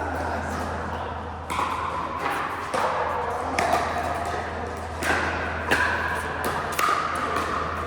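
Pickleball paddles striking the ball: sharp pops at irregular intervals, with people's voices in the background.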